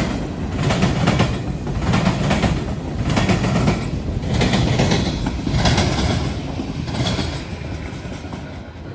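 Freight train's cars rolling past, steel wheels clacking over the track in a steady rhythm of bursts about every second and a quarter over a continuous rumble, growing quieter near the end.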